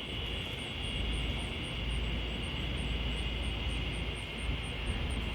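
Chorus of cicadas in the trees giving a steady, continuous high buzz. A faint series of higher ticks runs at about four a second, over a low rumble.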